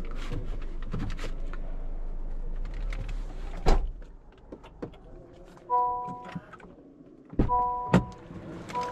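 Car interior sounds from a Honda HR-V. A steady low hum is cut by a sharp click, after which it goes quieter. A warning chime then sounds three times in short steady tones, with a solid thunk near the end.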